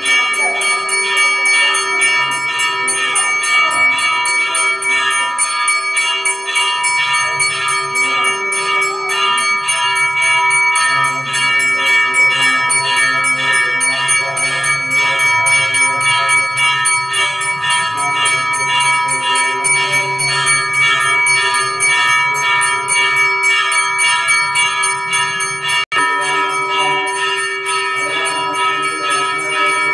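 Temple bells ringing rapidly and without pause, a dense run of strikes over a steady ring, as during the deeparadhana lamp-waving worship. There is a momentary break near the end.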